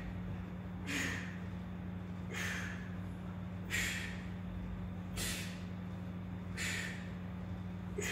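A man breathing out in sharp, forceful breaths during hanging knee raises, about one every second and a half, over a steady low hum.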